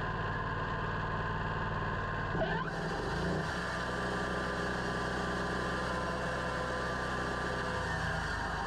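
Engine running at a steady speed, with a brief change in pitch about two and a half seconds in.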